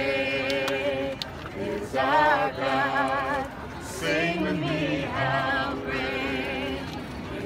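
A group of men and women singing together in long, wavering held notes, phrase after phrase.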